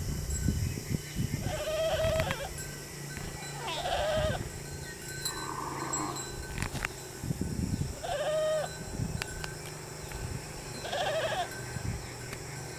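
Goats bleating: four short, high bleats a few seconds apart, over a low rumble.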